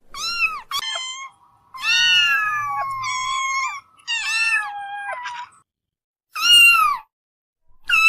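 Kittens meowing repeatedly: high-pitched calls, about six of them, some overlapping, with one long drawn-out meow about two seconds in.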